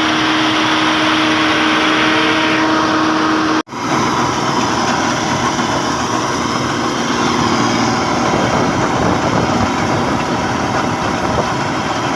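Laverda combine harvester running steadily while harvesting rice, with its engine and threshing machinery giving a continuous hum and clatter. The sound cuts out for an instant about three and a half seconds in and then carries on at a slightly lower pitch.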